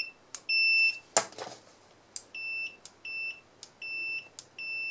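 Continuity beepers of the BSIDE ACM03 and PEAKMETER PM2108A digital clamp meters sounding as the test probes are touched together. Each touch gives a click and a short, high, steady beep: first one longer, louder beep, then after a brief scraping noise about a second in, five shorter, quieter beeps.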